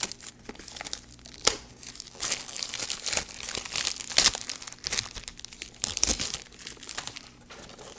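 Clear plastic wrap crinkling and tearing as it is pulled off a moulded plastic light, in irregular crackles with a few sharper snaps.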